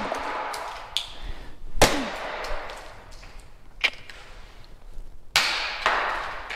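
Sharp knocks and clatters of parts being wrenched off an old pit bike and thrown down, a few separate impacts a second or two apart, the loudest about two seconds in.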